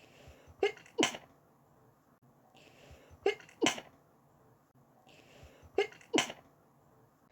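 A person sneezing three times, about two and a half seconds apart, each sneeze a short in-breath followed by a sharp two-part burst.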